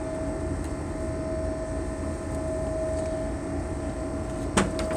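Steady low drone of a towboat's machinery, with a constant hum through it. A sharp knock comes near the end.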